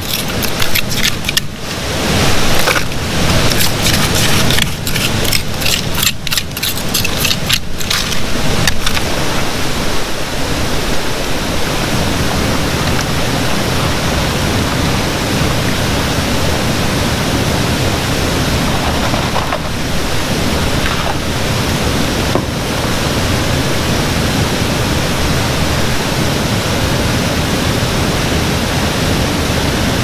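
A small trowel scraping and digging in gravel and mud on bedrock, with stones rattling, for the first several seconds, over the steady rush of a waterfall. After that, only the loud, even rush of the waterfall and river remains.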